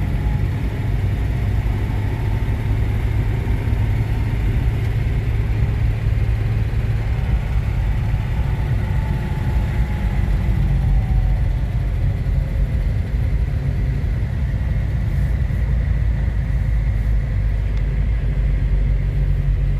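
Steady low rumble of a vehicle engine running, unchanging throughout.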